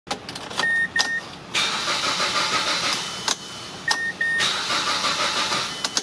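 Two short beeps, then a 2010 Mazda CX-7's starter cranking the engine for about two seconds without it catching; the two beeps and the crank come once more. The engine cranks but does not start.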